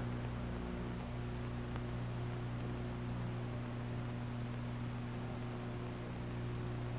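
Steady low hum with hiss on an old film soundtrack, a few low tones held unchanged throughout.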